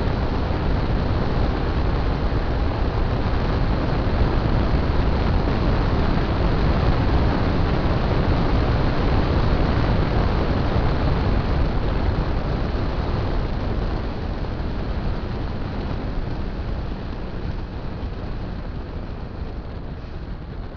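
Wind rushing over the microphone of a cheap motorcycle-mounted action camera while riding at road speed, with the motorcycle's engine and tyre noise underneath. The rush eases off steadily over the last several seconds as the bike slows.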